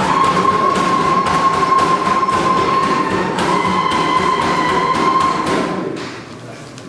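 Music with a steady beat and a long held high note, fading out about six seconds in.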